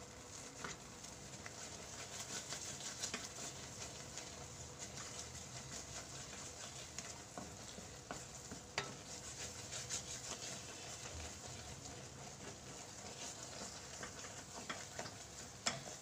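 Wooden spatula stirring and scraping a thick milk-powder, milk and ghee mixture around a non-stick kadai, with frequent small scrapes and taps over a soft sizzle. The mixture has cooked down to the stage where it has thickened like mawa (khoya).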